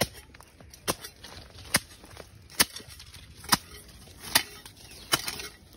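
Flip-flops slapping with each step while walking down dirt steps: seven sharp slaps at an even walking pace, a little under a second apart.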